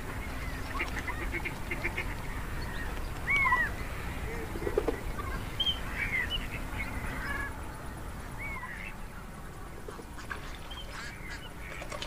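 A flock of domestic ducks and geese calling now and then: scattered short quacks and honks, some rising and falling in pitch, over a steady background noise.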